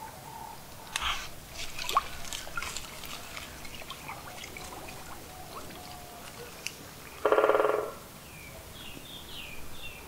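Water dripping and small crackles, then about seven seconds in a great spotted woodpecker drums once on its drumming tree: one loud, rapid burst lasting under a second.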